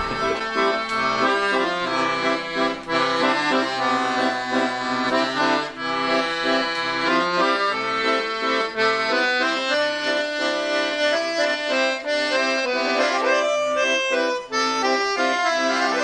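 A piano accordion playing a tune: held chords and a melody over low bass notes that change underneath.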